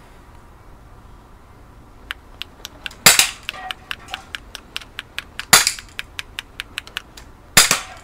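Crosman PT85 CO2 air pistol fired three times, a couple of seconds apart, each shot a sharp pop with a short tail. Many light quick ticks come between the shots.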